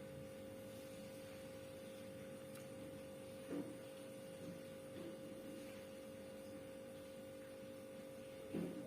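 Faint steady hum of the refrigerator running as it cools, carrying one constant mid-pitched tone, with two brief faint sounds: one about three and a half seconds in and one near the end.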